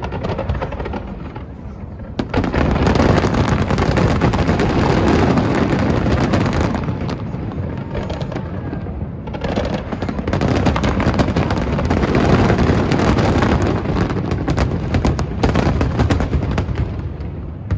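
Aerial fireworks display: dense volleys of shell bursts and crackling in two long barrages, the first from about two seconds in, the second from about nine seconds in.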